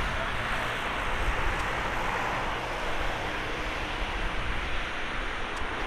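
Boeing 737-800 freighter's CFM56-7B jet engines at taxi power, a steady rushing hum, with low wind rumble on the microphone.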